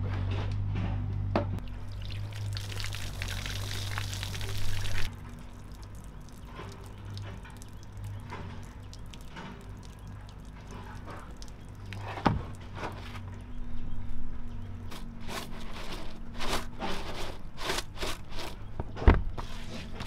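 Liquid pouring for about three seconds and stopping abruptly, over a low steady hum, followed later by scattered sharp clicks and knocks.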